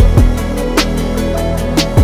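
Background music with a steady beat: deep kick drums and a sharp snare-like hit about once a second over held bass and keyboard notes.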